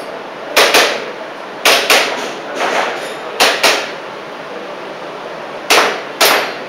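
Airsoft pistol shots fired in quick pairs (double taps): about five pairs of sharp cracks, each pair a quarter to half a second apart.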